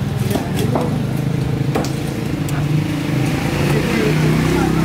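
A large knife cutting into a trevally on a wooden stump chopping block, giving a few sharp knocks as the blade strikes through. Under it runs a steady low engine drone.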